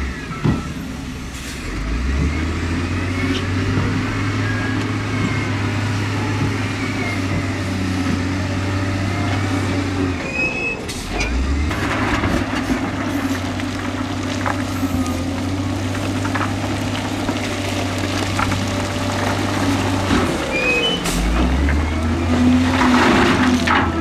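Heavy earthmoving machine's diesel engine revving up under load and dropping back, three times at roughly ten-second intervals, with short high squeaks and a few sharp metallic knocks.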